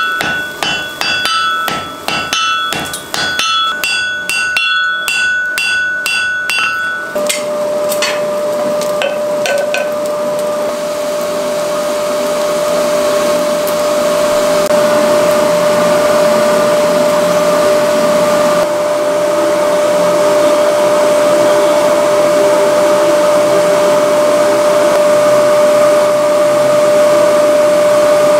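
Hand hammer striking hot wrought iron on an anvil, rapid ringing blows about three a second, stopping about seven seconds in. After that a coal forge fire and its blower give a steady hum over an even rushing noise.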